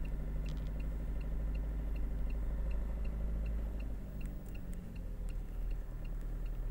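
Vehicle engine running at low road speed, a steady low rumble that shifts about four seconds in, with a light, regular ticking at about four ticks a second over it.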